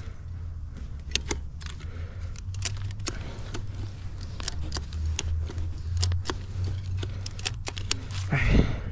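Metal ratchet buckle on a ratchet strap being worked by hand: irregular sharp clicks and clinks as the strap is tightened, over a steady low rumble of clothing rubbing on the microphone. A louder rush of noise near the end.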